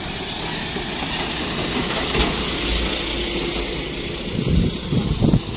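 Hyundai light cargo truck's diesel engine running as the truck rolls slowly past, getting louder as it comes close, with a few low thumps near the end.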